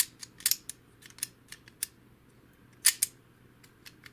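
Spring-loaded plastic lever from an HP DeskJet 2130's mechanism being worked back and forth by hand, giving a series of sharp plastic clicks and snaps, loudest at the start, about half a second in and near three seconds in. The lever sticks a little as it moves.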